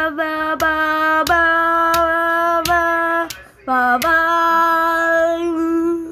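Phone startup jingle sung by a voice: a run of held, nearly level notes, with small clicks where the notes change. A short lower note rises back up past the middle, then one long held note stops at the end.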